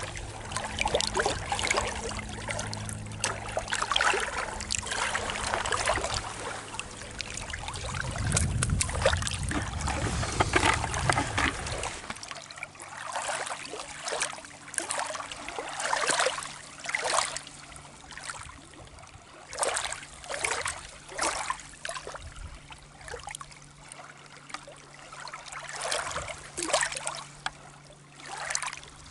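Small waves lapping and trickling among rocks at a lake's edge, in irregular splashes a second or so apart. A low steady hum runs underneath and stops about twelve seconds in.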